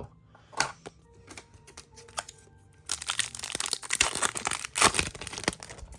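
A few light clicks, then about three seconds in, a dense run of crinkling and tearing: a trading-card booster pack's wrapper being torn open and crumpled.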